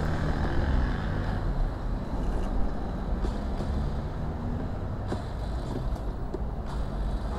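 Motorcycle electric starter pressed: a steady low mechanical whirr, without the engine catching. The fault is a seized starter pinion gear.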